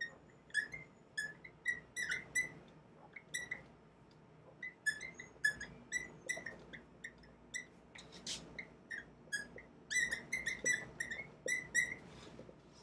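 Dry-erase marker squeaking on a whiteboard while writing: many short, high squeaks in quick runs, with small pauses between strokes.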